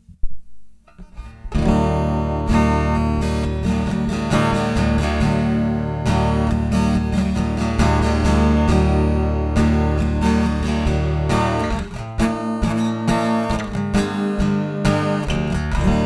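Yamaha FGX830C acoustic-electric guitar strummed and picked, fed line-in through a Yamaha THR30IIA acoustic amp on its "tube" setting. A few knocks come first, then the playing begins about a second and a half in, with full ringing chords and a short drop in level near the end.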